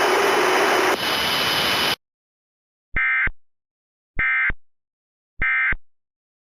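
About two seconds of steady static hiss that cuts off sharply. Then come the three short data bursts of an Emergency Alert System end-of-message (EOM) code, each about a third of a second long and sent about a second apart, which close the alert.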